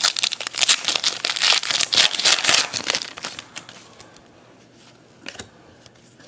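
Baseball card pack wrapper crinkling as it is opened and handled, a dense crackle for about three and a half seconds, then quieter with a single tick about five seconds in.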